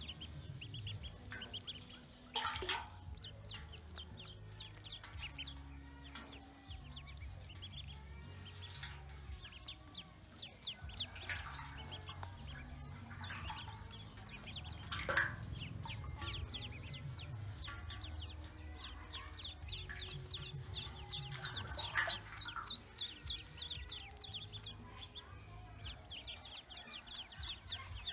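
A flock of ducklings peeping, many rapid high peeps overlapping into a continuous chorus, with a few louder calls standing out.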